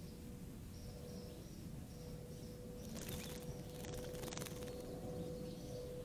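A female northern cardinal splashing in a shallow bird bath, a brief flurry of wings beating the water about three seconds in that lasts about a second and a half. Under it run a steady faint hum and faint short high chirps, repeating.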